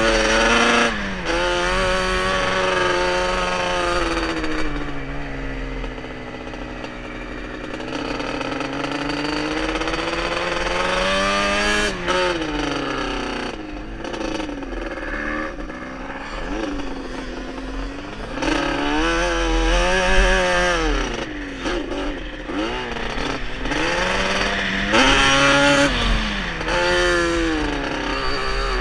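Off-road vehicle engine revving up and down again and again, its pitch rising and falling in repeated sweeps, with wind rumbling on a helmet-mounted microphone.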